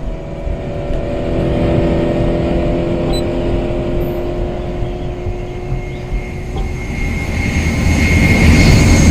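Sound effect of a race car engine running at high speed, a steady high note over a low rumble. Near the end a rush of noise with a high whine swells up as a faster vehicle passes.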